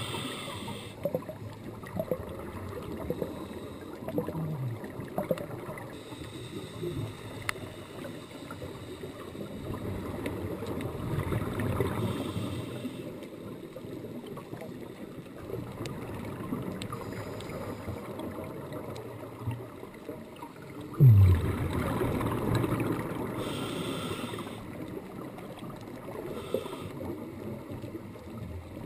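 Underwater sound picked up by a diver's camera: scuba exhaust bubbles gurgling out in bursts every several seconds. The loudest burst starts suddenly about 21 seconds in. Scattered sharp clicks run underneath.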